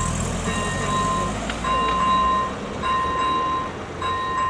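ZV-01 electronic warning bell of a level crossing sounding a repeating tone about once every second and a bit, meaning the crossing is activated for an approaching train. A car drives past close by in the first few seconds.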